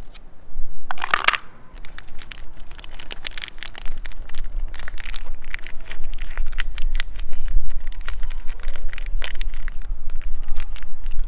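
Plastic-foil wet cat food pouch crinkling and crackling as it is handled and squeezed out into a plastic bowl, with a loud crackling burst about a second in and many small sharp crackles and clicks after it.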